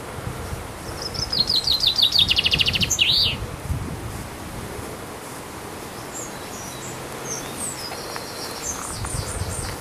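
A songbird sings a loud, fast trill of repeated notes that falls in pitch and ends on a different closing note, about a second in and lasting about two seconds. Fainter high chirps from other birds follow in the second half.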